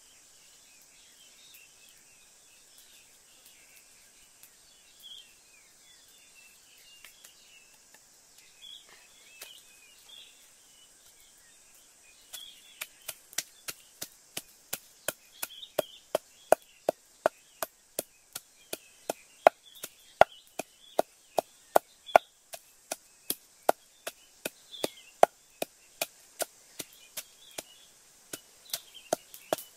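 Wooden pestle pounding ingredients in a clay mortar, starting about twelve seconds in and going on at about two strikes a second. Small birds chirp faintly in the background throughout.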